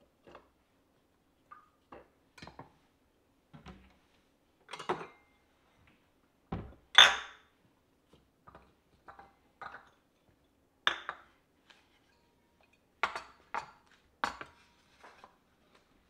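Kitchen handling sounds from slicing an apple on a wooden cutting board and setting slices, a fork and a spoon on a ceramic plate: a scattered series of short knife taps, knocks and clinks. The loudest is a low thump followed by a ringing clink about seven seconds in, and a quick run of knocks comes near the end.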